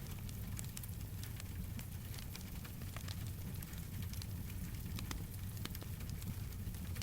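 Wood fire burning with rain falling: a steady low rumble under scattered, irregular sharp pops.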